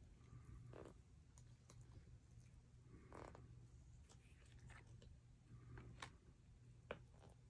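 Faint clicks and light brushing of glossy Mosaic basketball trading cards being flipped one behind another in the hands, several times.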